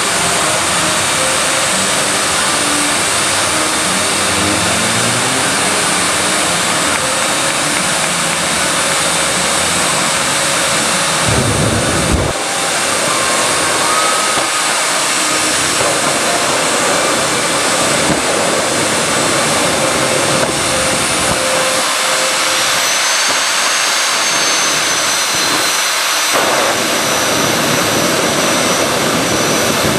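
Jet dragsters' turbine engines running on the starting line with afterburners lit and throwing flames: a loud, steady rush of jet exhaust with high turbine whines that shift in pitch in the second half. A short low thump about twelve seconds in.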